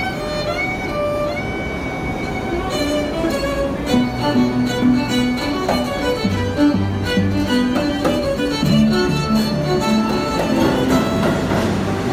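String ensemble of violins and a cello playing a melodic piece, with a subway train's rumble rising under the music near the end.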